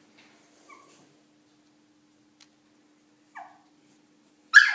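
Shih Tzu puppy whimpering faintly twice, the second cry falling in pitch, then giving a sudden loud yelp near the end. The puppy is afraid to come down the stairs.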